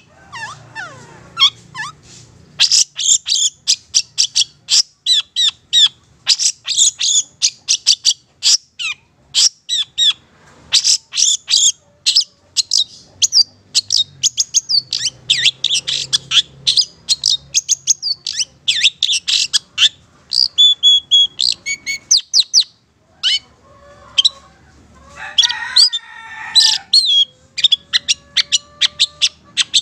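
Madura long-tailed shrike (cendet) singing: a fast, loud string of short, sharp high chirps, broken by brief pauses, with a few lower warbled notes about three-quarters of the way through.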